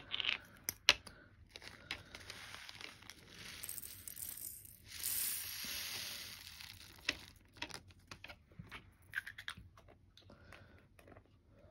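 Small plastic packets of diamond-painting drills being handled: crinkling and tearing, with scattered sharp clicks. A longer rustling, hissing stretch comes in the middle.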